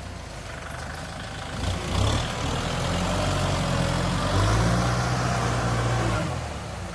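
Heavy diesel engine running under load, surging briefly about two seconds in, then working harder and louder from about four and a half seconds in before easing off near the end.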